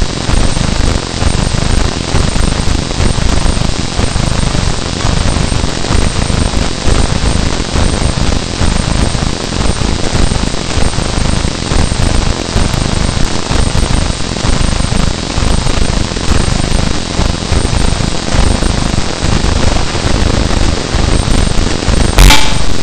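Harsh noise music: a dense, loud wall of distorted static and rumble with a few faint steady high tones running through it. Near the end it jumps suddenly louder and harsher.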